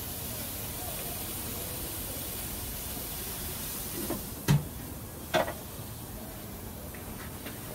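Marinated pork loin slices sizzling on a Weber Pulse electric grill, then two sharp clunks about four and a half and five and a half seconds in as the grill's lid is shut, after which the sizzle is much fainter.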